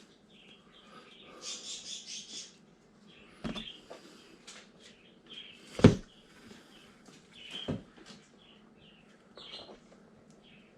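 A few sharp clicks and knocks from handling a small 1/24-scale RC crawler's plastic body and parts during assembly, the loudest about six seconds in. Faint bird chirps are heard in the background.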